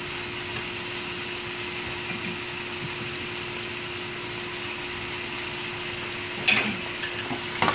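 Steady low hiss of food cooking on a stovetop: diced chicken, cabbage and onion in a hot wok beside a steaming pot of noodle water, with a faint steady hum underneath. A short knock about six and a half seconds in and a sharp click at the very end.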